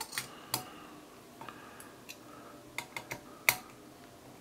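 Metal hex-key tool clicking and clinking against the cylinder-head bolts of a small air compressor as they are tightened. Several short, separate clicks, the sharpest about three and a half seconds in.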